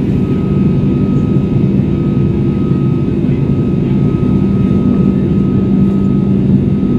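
Airbus A340-600's Rolls-Royce Trent 500 turbofan engines heard from the cabin during the climb after takeoff: a loud, steady, low roar with a thin constant tone riding above it.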